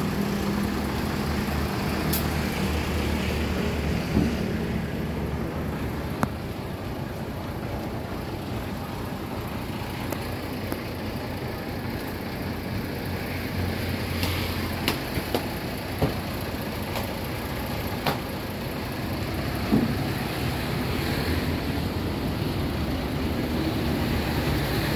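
Truck engine running steadily with a low hum, with a few short knocks through it.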